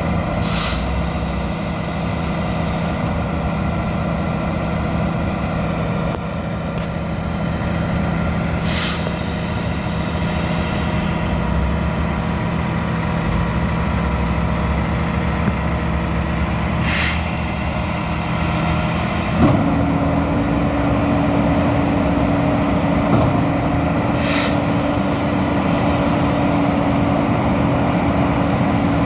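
2015 Freightliner M2 concrete pump truck's diesel engine running steadily, with a short hiss about every eight seconds. About two-thirds of the way through, a new steady whine joins in and the sound gets a little louder.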